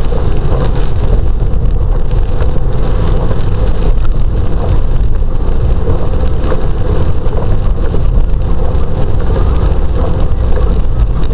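Car driving along a wet road, heard from inside the cabin: steady engine and tyre noise with a heavy low rumble.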